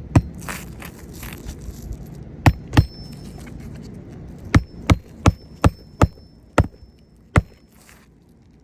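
Hammer striking roofing nails during a shingle repair: about ten sharp, irregularly spaced blows, several in quick succession between about four and a half and seven and a half seconds in.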